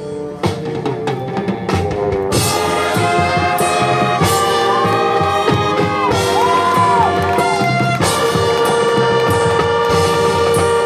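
High school marching band playing live: sharp percussion strokes at first, then the full brass section comes in loud about two seconds in and plays sustained chords.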